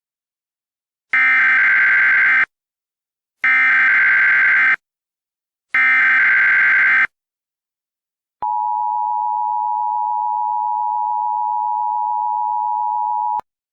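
Emergency Alert System header: three short bursts of SAME digital data tones, each just over a second, then a steady two-tone attention signal for about five seconds that cuts off sharply. Together they mark the start of an emergency alert broadcast.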